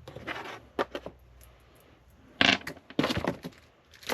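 Small computer parts being handled and set down: a string of clicks and knocks, with the loudest knock about two and a half seconds in and a quick clatter just after.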